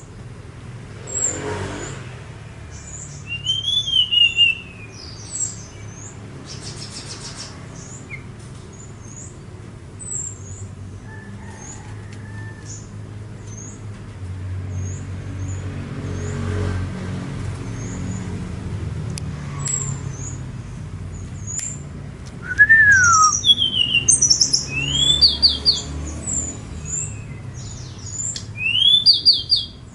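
Tledekan songbird singing: a run of short, high chirps and quick sliding whistled notes, busiest and loudest near the end. A low rumble runs underneath through the middle.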